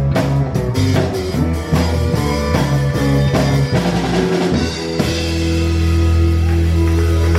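Live country-rock band with drum kit, bass and electric guitar playing the end of a song. Drum hits and fills run for about five seconds, then the band holds one loud chord that rings on.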